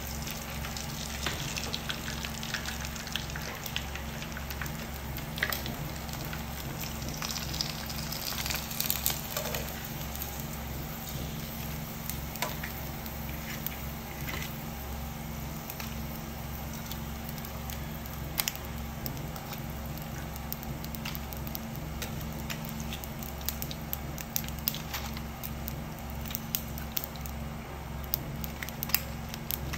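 Hot oil sizzling and crackling in a frying pan as prawn crackers fry, with scattered sharp clicks from metal tongs handling the crackers, over a steady low hum.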